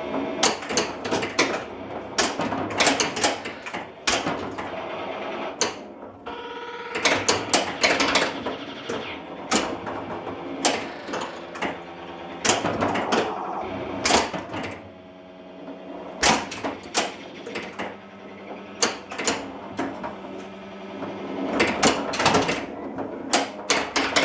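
A 1980 Williams Firepower solid-state pinball machine in play: rapid clacks and knocks from flippers, bumpers and solenoids as the ball is struck, over the game's electronic sound effects of steady tones, with a rising sweep about seven seconds in.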